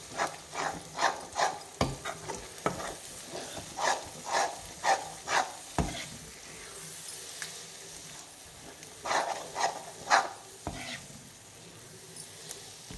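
A spatula stirring and scraping a thick yogurt masala around a kadai in quick strokes, about two or three a second, in three runs with a pause in the middle. Under it the oil sizzles steadily as the masala fries on low flame until the oil separates.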